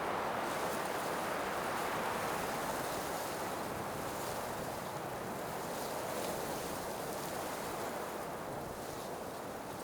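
Blizzard wind blowing as a steady rushing noise that eases gradually toward the end.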